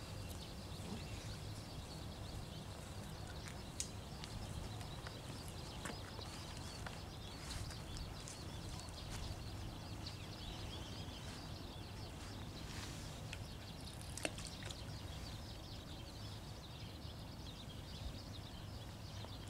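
Quiet outdoor ambience: a steady low rumble with faint birdsong, and two light clicks, about four seconds in and about fourteen seconds in.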